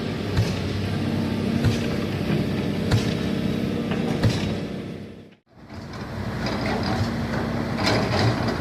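Caterpillar 320D hydraulic excavator's diesel engine running steadily, with sharp metallic knocks about every second and a quarter. The sound dips out briefly about five and a half seconds in, then returns.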